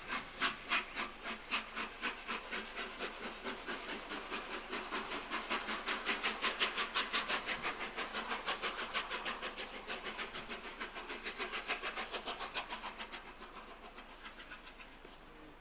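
Peppercorn A1 Pacific steam locomotive 60163 Tornado's three-cylinder exhaust beating in a steady run of chuffs as it works away, the beats quickening and then fading out near the end.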